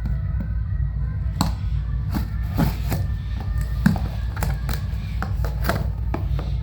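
Background music with a steady low bed, over irregular clicks and crinkles of parcel packaging being handled and opened.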